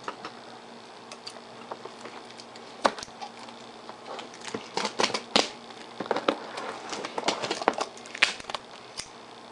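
Plastic shrink-wrap being peeled and torn off a cardboard box: scattered crinkles and crackles, sparse at first and coming thick and fast from about halfway through.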